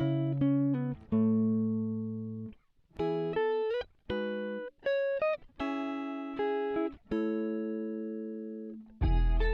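Background music: plucked guitar chords and short note runs, each ringing out and fading, with brief pauses between phrases; a fuller section with bass comes in near the end.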